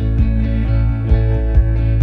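Background music with a steady beat of about two beats a second over a strong bass line.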